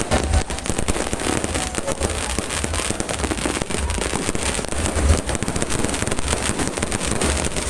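Fireworks display: a dense, nonstop barrage of overlapping bangs and crackles with repeated deep booms.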